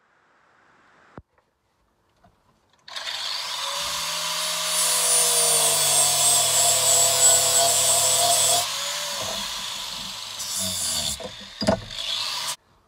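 Angle grinder starting up about three seconds in and cutting into metal clamped in a vise, a loud steady grinding for about six seconds, then fading away as the cut ends, with a sharp knock near the end.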